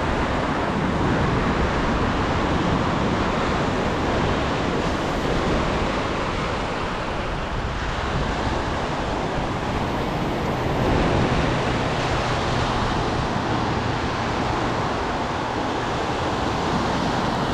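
Ocean surf breaking and washing up a sandy beach, a steady rush with no pauses, with wind on the microphone.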